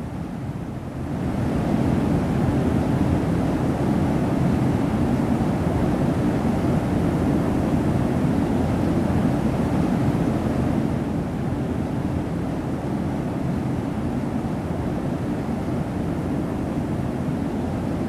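Steady roar of rushing water from a waterfall, getting louder about a second in and easing a little near eleven seconds in.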